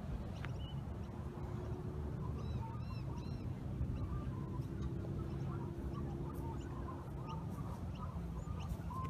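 Birds calling in short repeated notes over a steady low outdoor rumble.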